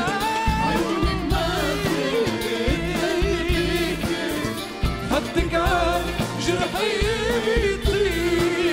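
Male singer holding a long, ornamented vocal line with vibrato, with no clear words, over live band accompaniment with a steady beat.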